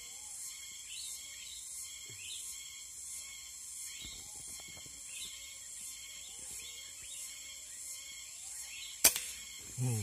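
Steady, high, pulsing insect buzz with faint bird chirps, broken about nine seconds in by one sharp crack like a shot.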